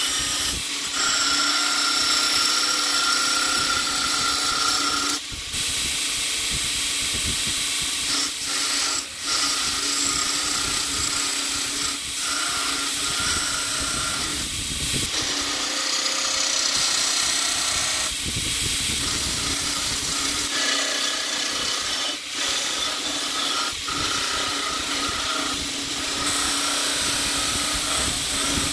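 Belt grinder running with a stainless san mai steel billet pressed against the moving belt, a steady grinding hiss with a few short dips in the sound.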